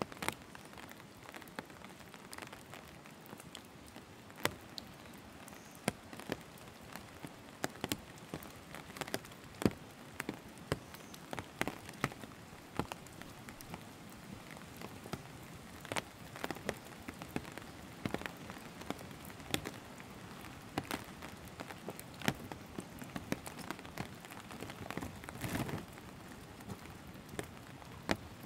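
Light rain falling steadily, with many sharp, irregular drops tapping close by and a brief louder rush about three seconds before the end.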